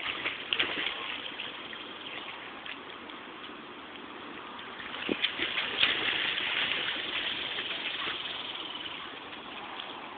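Pool water splashing as a child swimmer thrashes his arms and kicks. The splashes are louder about half a second in and again around five to six seconds in.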